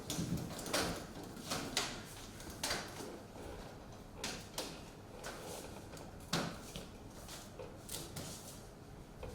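A series of irregular short clicks and knocks, a dozen or so, over a faint background.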